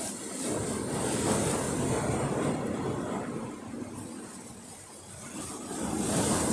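Rough sea surging against the shore, with wind on the microphone: a rushing wash that swells, eases off around the middle and builds again near the end.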